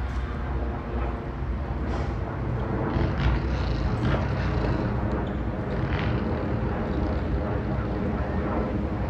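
Steady low outdoor rumble with faint, indistinct voices of players on the field.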